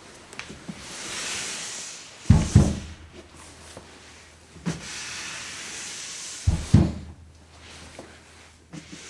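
Foley slide: something slides with a smooth, hissing scrape and stops with a double thud, twice, with a small knock before the second slide.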